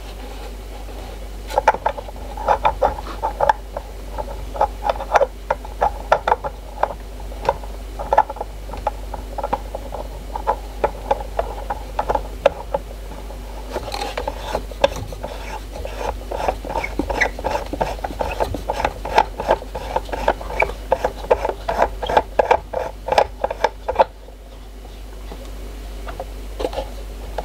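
Quick, irregular clicking and rattling as a Turgo turbine runner with stainless spoons is turned by hand in its plastic housing. The clicking stops shortly before the end.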